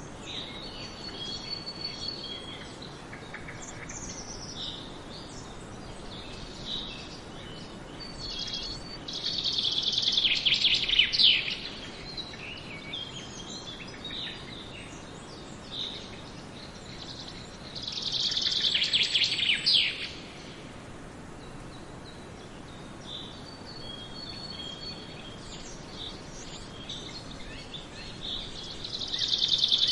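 Forest birds singing. One bird repeats a loud, rapid trilling song of about two and a half seconds three times, roughly every ten seconds, while other birds give softer short chirps in between over a faint steady hiss.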